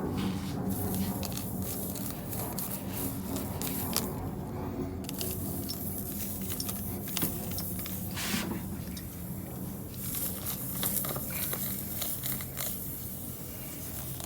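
Steel spiral reamer from a tire plug kit being worked in and out of a screw hole in a run-flat tire's tread to clean it out: rough scraping of metal against rubber with many scattered short clicks.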